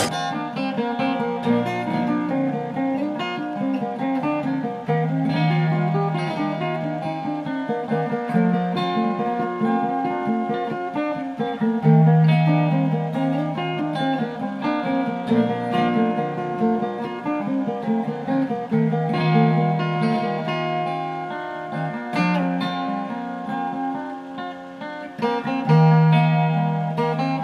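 Background music: an acoustic folk guitar improvisation, a steady run of changing notes.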